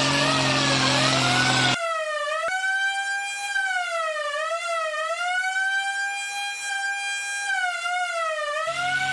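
Police car siren wailing, its pitch sliding down and back up every second or two. A vehicle engine runs under it for the first couple of seconds and again near the end, and there is one sharp click about two and a half seconds in.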